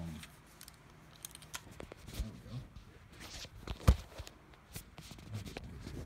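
Handling noise: rustling with scattered clicks and knocks as the phone and a baitcasting reel are picked up and moved about, with one sharp knock about four seconds in.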